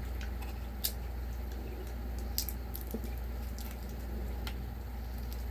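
Close-up eating sounds: a few soft wet clicks and smacks of chewing, spaced a second or so apart, over a steady low hum.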